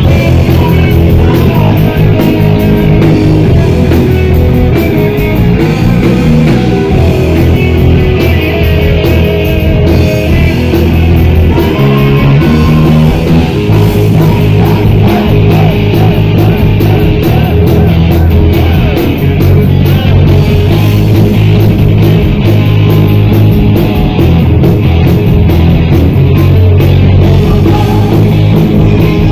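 Heavy metal band playing live and loud: a distorted Flying V-style electric guitar plays over bass guitar and drums.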